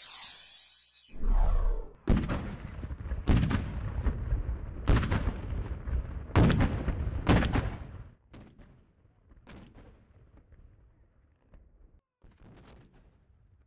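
Muzzle-loading Civil War field cannons firing blank charges: about half a dozen loud booms one after another, a second or so apart, then a few fainter reports near the end.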